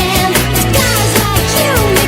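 Recorded pop music with a steady beat and a melody that slides up and down in pitch.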